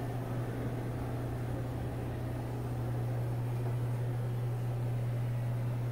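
Broan ceiling exhaust fan running, its steady airflow hiss overlaid by a constant low buzz; the fan otherwise runs quietly and moves air well despite the buzz.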